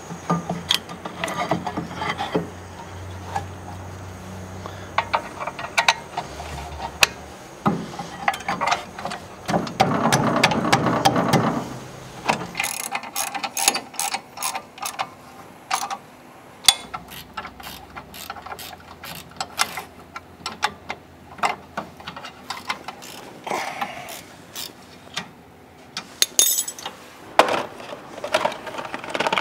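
Hand tools at work on an old car: a long run of sharp mechanical clicks and clatter, with a louder rough noise lasting about three seconds around ten seconds in.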